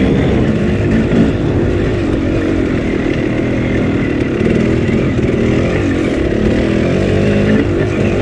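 Dirt bike engine running while the bike is ridden, its pitch rising and falling with the throttle, with a brief knock about a second in.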